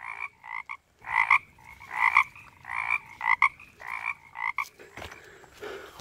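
A frog croaking close by in short, repeated calls, about two a second. The calls stop a little before five seconds in, and a couple of soft knocks and rustles follow.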